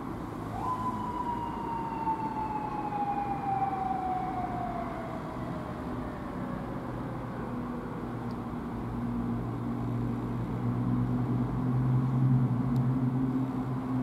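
Japanese police motorcycle siren: a single wail that jumps up sharply, then slowly falls in pitch over several seconds as it winds down. After it, a steady low engine hum grows louder near the end.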